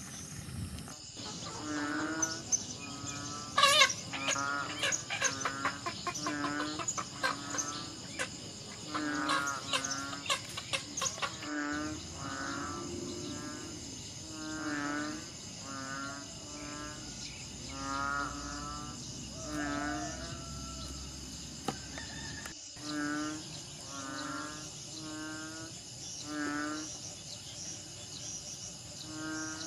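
Steady high-pitched buzzing of insects, with a short warbling call repeating about once a second and a cluster of sharp clicks in the first third.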